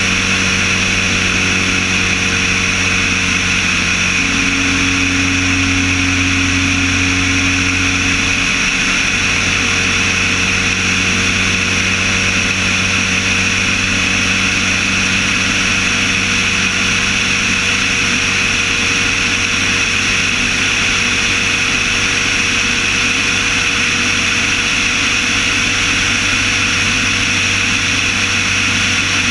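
Light aircraft's piston engine and propeller droning steadily in cruise flight, with a rush of airflow. The engine's note changes briefly between about four and nine seconds in.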